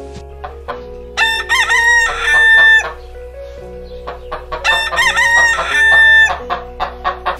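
Rooster crowing twice. Each crow is a run of short broken notes ending on a long held note, about a second and a half in all. Short clicks come between the crows.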